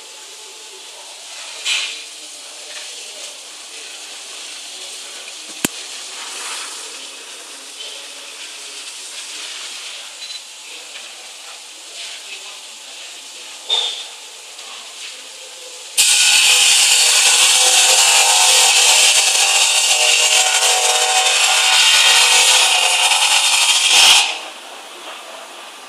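The tube machine's gas system blowing a loud, steady hiss of gas that starts abruptly about sixteen seconds in and cuts off about eight seconds later. Before it there is only a faint steady hiss with a few short clicks.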